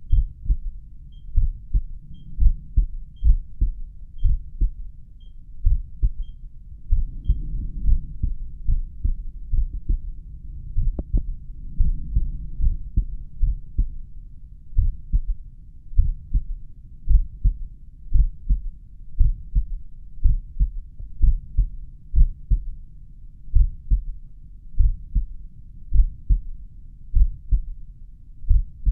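Slow resting heartbeat heard through a stethoscope: regular low thumps, about one beat a second. Faint high beeps from a pulse oximeter sound about once a second for the first seven seconds or so.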